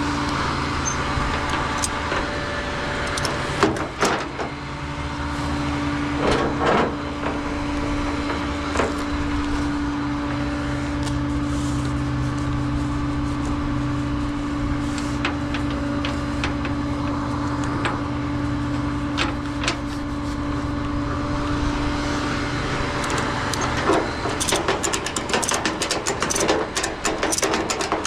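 Truck engine running steadily with a low hum. Scattered clicks and knocks are heard, growing into a busier clatter over the last few seconds.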